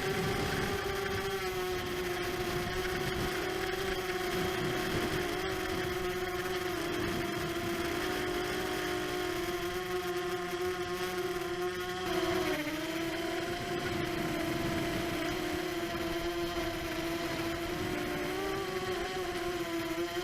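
ImmersionRC Vortex 250 Pro quadcopter's brushless motors and propellers whining steadily in flight, with a rushing airflow noise. The pitch wavers with throttle and briefly dips and recovers about twelve seconds in.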